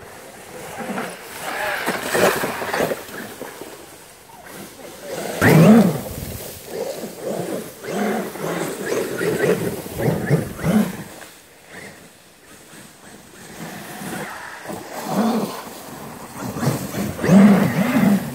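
Traxxas X-Maxx RC monster truck's electric motor revving in repeated bursts as it drives on a dirt trail, its tyres spinning in loose dirt and leaves.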